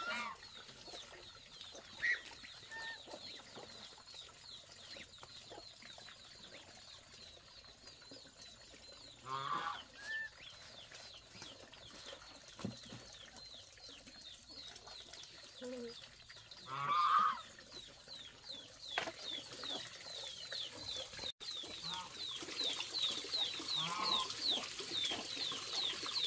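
Chickens clucking a few times, loudest about two-thirds of the way through, over a steady run of fast, high chirping.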